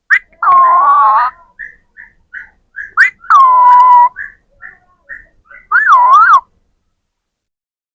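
A pet parrot whistling: three long whistled notes, about half a second in, about three seconds in and near six seconds, the last one swooping up and down twice, with short chirps between them.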